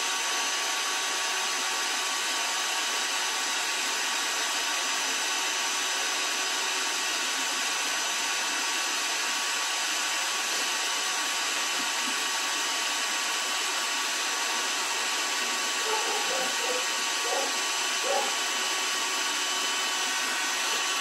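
Electric drill running at a steady speed, spinning the drive of a 1951 Chevrolet speedometer: an even motor whine with several fixed tones over a hiss, unchanging throughout.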